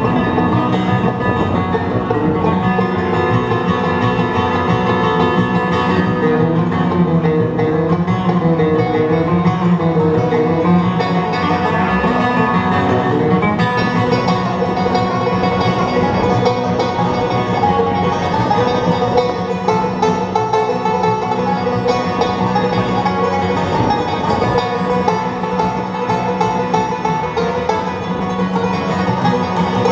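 Bluegrass band playing live, with banjo and guitar picking to the fore.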